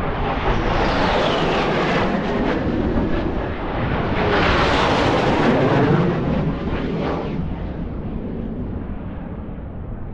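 Low-flying military jets passing: a loud jet roar that builds to its peak about five seconds in, its pitch falling as it goes by, then fades away.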